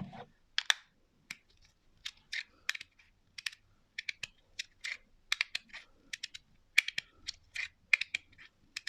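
A 3D-printed magnetic fidget slider being slid back and forth, its plates clicking into place over and over in quick, irregular clicks, some of them in close pairs.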